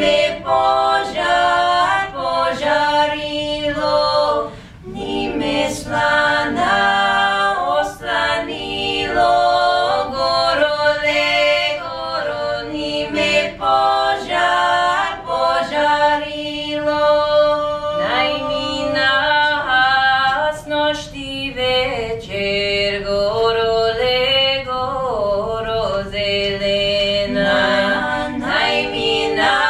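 Three women's voices singing a cappella in close harmony, a traditional Western Bulgarian folk song: phrases of long held notes that step between pitches, with a short break for breath about four seconds in.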